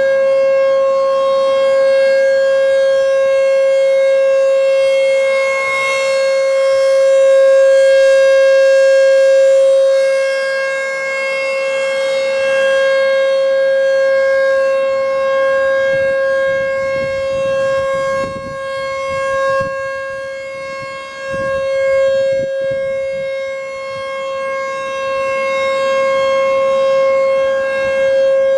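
American Signal T-128 rotating outdoor warning siren sounding its Full Alert cycle: one loud, steady tone at an unchanging pitch, swelling and fading slowly as the rotating head sweeps past.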